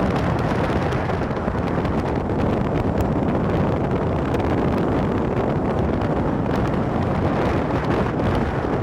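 Steady wind rumble buffeting the microphone of a moving vehicle, with vehicle road noise underneath.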